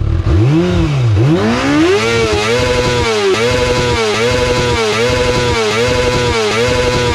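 2019 Kawasaki ZX-6R's 636 cc inline-four through its stock exhaust, revved in quick throttle blips. There is one rise and fall, then a climb, then a run of about six short revs, each rising and dropping back, under a second apart.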